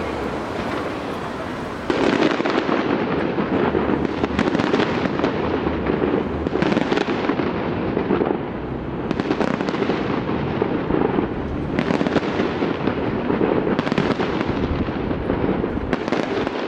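Fireworks bursting overhead in quick succession, a dense crackle of shells and stars with sharper loud bursts every two to three seconds, growing louder about two seconds in.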